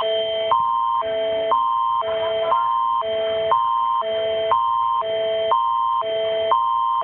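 Canadian Alerting Attention Signal (Alert Ready tone): two chords alternating every half second, a higher pair of tones and a lower pair, under one constant high tone. It is the attention signal that announces an emergency alert is about to follow.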